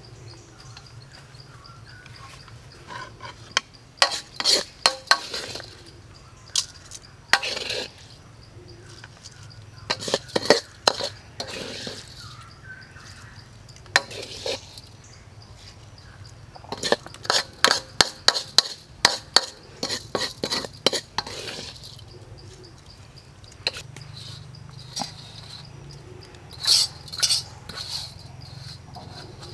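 Hard objects clattering and clinking in quick bursts, clusters of sharp clicks several times over, above a steady insect trill.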